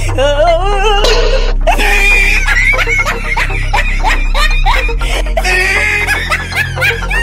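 Background music with a steady low bass, overlaid with repeated giggling, laughing sound effects in a wobbling, sped-up voice.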